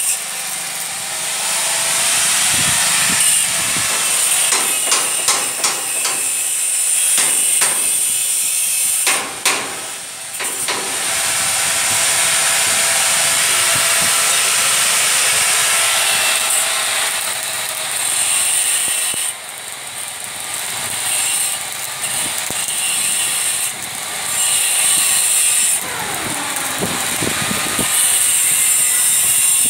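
Stick (arc) welding on a steel frame: the electrode's arc crackling and sizzling steadily, stopping and restarting a few times, with a run of sharp clicks about a third of the way in.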